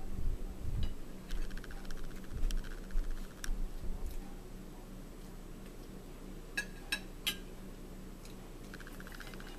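Meal sounds close to the microphone: low knocks on the table early on, rapid soft clicking of chewing, and three sharp clicks of cutlery on a plate about two-thirds through.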